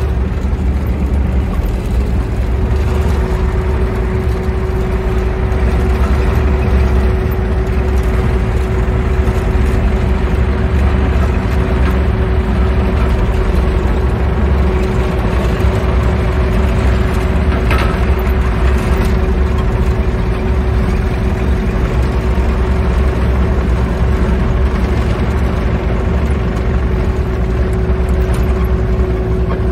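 Mini excavator's diesel engine running steadily as the machine travels, heard from the operator's seat: a low hum with one steady tone held above it.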